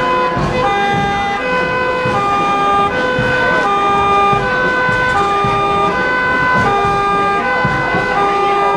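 Two-tone emergency siren (German Martinshorn) sounding its 'tatütata', alternating evenly between a lower and a higher tone, each held about three-quarters of a second.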